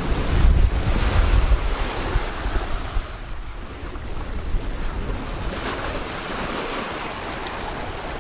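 Wind blowing over the microphone, loudest in the first two or three seconds, over the steady rush of water and waves along the hull of a Comfortina 32 sailing yacht under sail in a rolling sea.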